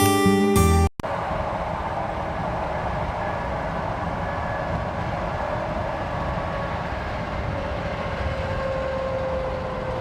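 Guitar music cuts off about a second in, followed by the steady engine and road noise of a vehicle driving, with a faint hum that slowly drops in pitch.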